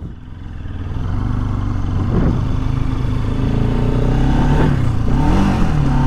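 Bajaj Pulsar RS 200's single-cylinder engine pulling away and riding on, getting louder over the first second or so and then running steadily, with a few brief rises and falls in pitch.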